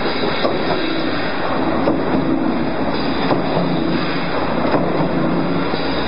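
Cable tray roll forming machine running, with metal strip feeding through the forming rollers: a steady mechanical rumble with a hum that swells and fades and a few scattered clicks.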